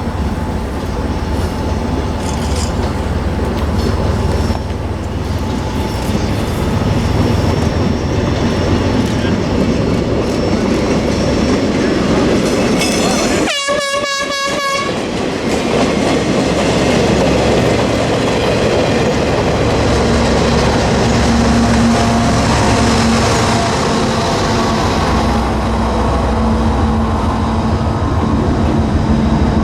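Diesel-powered train passing close by, its locomotive and cars running with a steady rumble and wheel clatter. A short horn blast sounds about halfway through.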